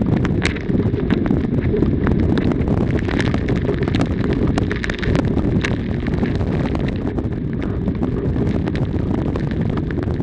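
Strong tropical-storm wind buffeting the microphone in a steady, loud low rumble, with many short crackles throughout.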